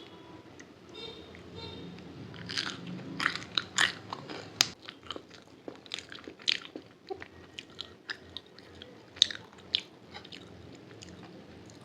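Close-miked eating of momos: bites and chewing with many sharp, crunchy mouth clicks, thinning out toward the end.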